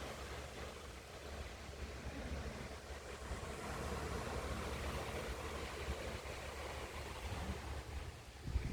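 Sea surf washing with wind rumbling on the microphone, and a brief louder bump of wind near the end.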